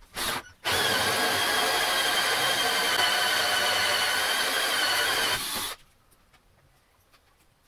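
Cordless drill spinning a hole saw through a wooden cabinet panel: a steady motor whine mixed with the noise of the saw cutting. It runs for about five seconds and stops once the hole is through.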